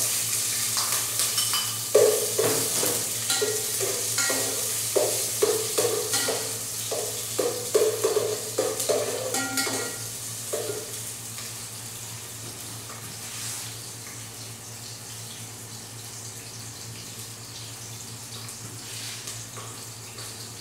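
Ingredients sizzling as they hit hot cooking oil in an aluminium pot, sautéed over a gas burner. A ladle scrapes and clinks against the pot again and again for the first half. The sizzle then settles to a quieter steady hiss.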